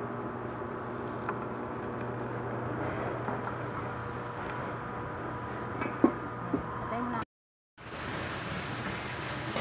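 A steady machine-like hum with a few light clicks and knocks, the loudest about six seconds in; the sound cuts out for a moment near the end.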